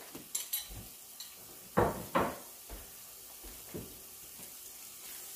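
Sauce sizzling quietly in a large steel pot on a gas stove, with two sharp knocks close together about two seconds in and a few lighter clunks of kitchenware being handled.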